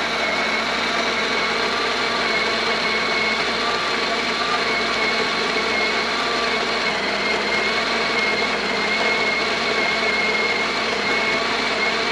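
Breville Barista Express's built-in conical burr grinder running steadily, grinding coffee beans with a constant motor whine over the grinding noise. It is running its automatic dose grind, switched on through a newly replaced grinder microswitch that is working.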